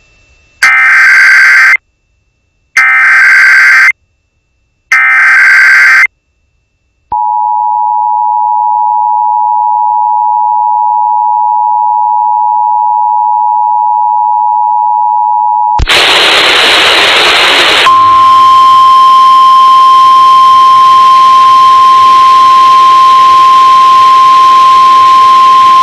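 Emergency Alert System test tones: three short bursts of the SAME digital header, each about a second long, then the two-tone attention signal held steady for about nine seconds. About sixteen seconds in it cuts to a hissy off-air feed: a brief burst of noise, then a single steady alert tone over the hiss.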